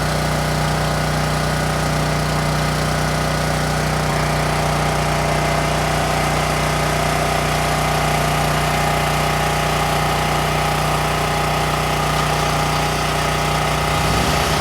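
Steady, even machine hum from a modified DJI Agras T30 pressure-washing drone rig at work, with a strong low tone and many overtones.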